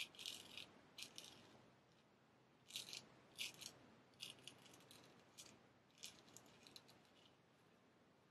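Straight razor scraping through stubble on the cheek and jaw in a series of short, faint, hissing strokes, about a dozen in the first seven seconds.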